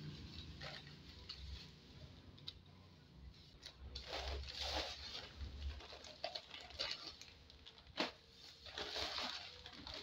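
Clear plastic shopping bag rustling and crinkling in irregular bursts as grocery packets are pulled out of it, with one sharp knock about eight seconds in.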